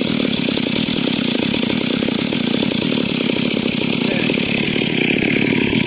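Stihl MS 382 two-stroke chainsaw running steadily at high revs, ripping dry timber lengthwise.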